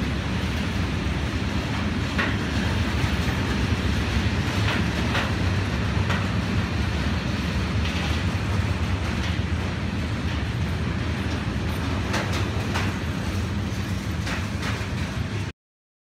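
Freight train of tank wagons rolling past, a steady low rumble with scattered sharp clicks from the running gear. It stops abruptly near the end.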